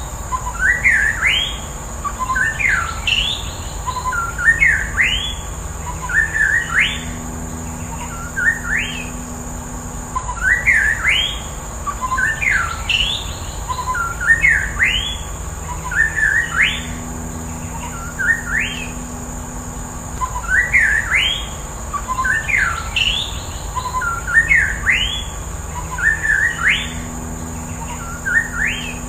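White-rumped shama (murai batu) singing: the same short phrase of quick rising whistled notes repeated about every two seconds, over a steady high-pitched tone.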